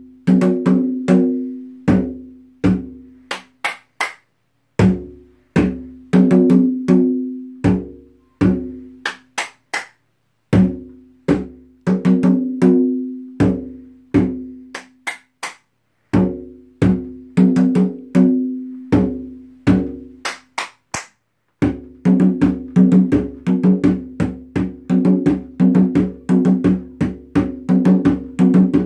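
Djembe played with bare hands, a taiko-style rhythm of ringing open tones and sharp slaps. It comes in phrases of a few seconds with short pauses between them, then, about three-quarters of the way through, runs on without a break in a denser, faster pattern.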